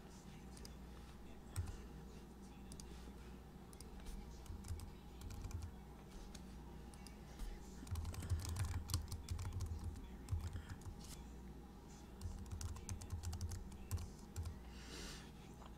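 Typing on a computer keyboard in irregular bursts of keystrokes, over a steady low hum.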